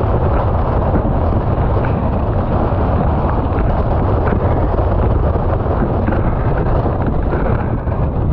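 Storm wind buffeting the camera's microphone, a loud steady rumble mixed with the rush of spray and water as a windsurfer planes through rough chop.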